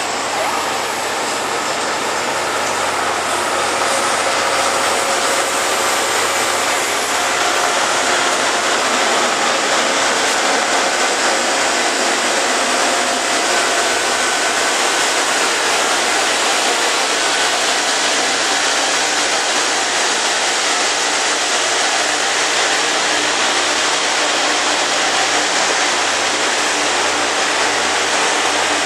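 Loram rail grinder train passing while grinding, its grinding stones on the rail making a loud, steady rush of grinding noise. It grows louder over the first few seconds, then holds.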